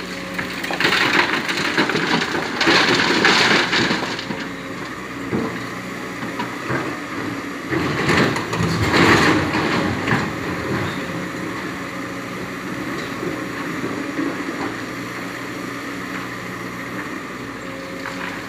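Excavator's diesel engine running steadily while loads of sand and stones are dumped into a truck bed, in two loud, rattling pours.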